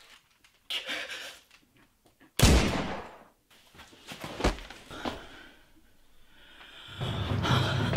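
A single loud bang about two and a half seconds in that rings out and fades, with a few fainter knocks after it. Near the end, dramatic film music with a deep drum comes in.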